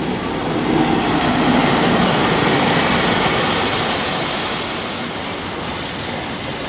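An InterCity 125 (HST) with its Class 43 diesel power car passing close by. It is loudest about a second or two in as the power car goes past, followed by the steady rolling noise of the coaches, which slowly fades.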